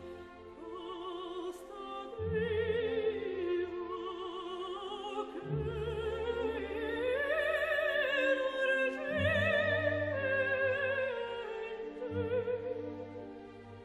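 Recorded classical soprano singing slow, sustained phrases with wide vibrato over orchestral accompaniment. The line climbs to its highest, loudest notes in the middle, then falls back.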